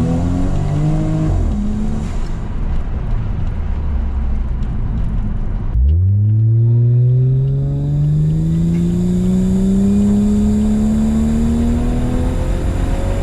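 A car engine accelerating hard: short rising pulls broken by gear changes in the first two seconds, then, about six seconds in, a fresh launch into one long, steadily rising pull.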